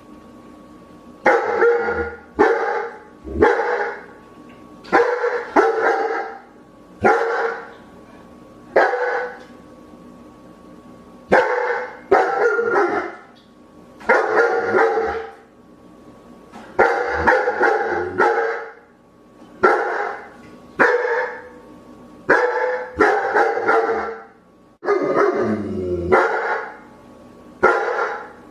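A dog barking repeatedly, single barks and short runs of two or three, with pauses of a second or two between groups.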